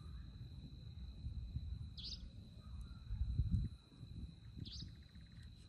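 Night insects keep up a steady high-pitched drone, while a short high call repeats about every two and a half seconds. Underneath runs a low rumble that swells briefly about three and a half seconds in.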